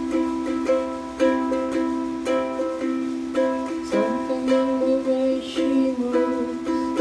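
Tribo TR-07 Niño concert ukulele, all acacia wood, played acoustically without an amplifier: chords strummed and notes picked in a steady rhythm, with a sliding note about four seconds in.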